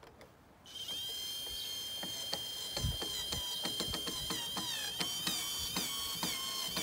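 Cordless drill driving a screw through a metal post cap into a wooden post. A steady high motor whine starts about a second in, broken by irregular clicks.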